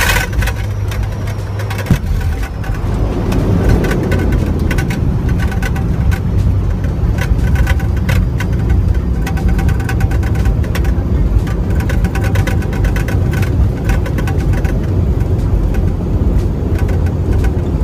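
Bombardier Q400 turboprop landing, heard from the cockpit: a steady drone of the engines and propellers, with a sharp knock at touchdown at the start. The noise swells about three seconds in as the aircraft rolls out on the runway, and frequent rattles and knocks run through the rollout.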